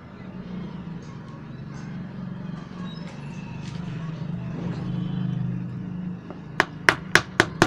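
Small rewound DC motor running with a low steady hum, which stops about six seconds in. Then six sharp clicks in quick succession, about four a second, from the small gear being pushed onto the motor's shaft.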